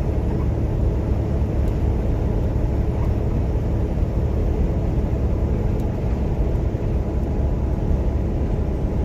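Steady low rumble of a truck's engine and road noise, heard from inside the cab while cruising at highway speed.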